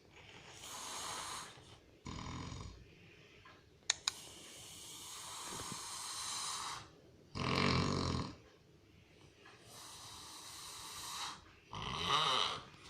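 A person snoring heavily: long, hissing breaths alternate with shorter, louder, deeper snores, the loudest about seven and a half seconds in and near the end. A sharp click about four seconds in.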